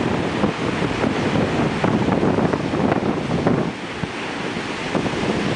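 Ocean surf breaking and washing ashore, with wind buffeting the microphone; the level dips a little about two thirds of the way through.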